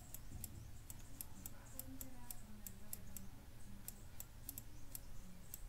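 Faint, irregular light clicks of a stylus tip tapping on a tablet as a word is handwritten, over a low steady hum.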